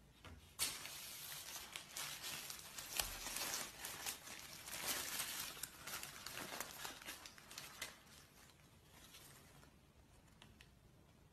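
Paper food wrapper being opened around a bun, crinkling and tearing. It starts suddenly about half a second in and fades out after about eight seconds.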